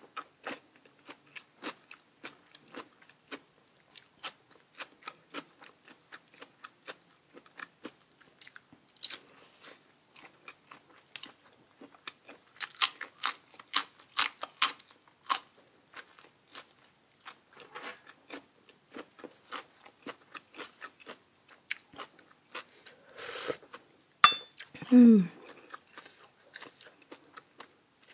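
A person chewing crisp raw vegetables and salad close to the microphone: a steady run of crunchy bites and chews, with a louder, denser flurry of crunching about halfway through. About two-thirds through there is a sharp click, then a short sound falling in pitch.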